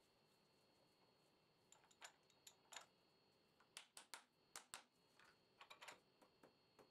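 Soft-faced mallet tapping a metal plate down in a milling vise: a dozen or so light, quick taps in irregular clusters, seating the workpiece flat in the vise.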